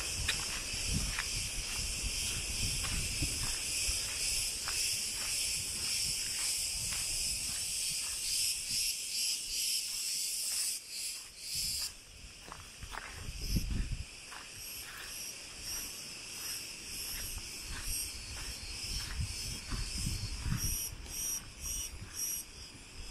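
Cicadas buzzing steadily; the chorus drops away about halfway through and turns into quicker pulsing near the end. Footsteps crunch on a gravel path about twice a second, with occasional low rumbles of wind on the microphone.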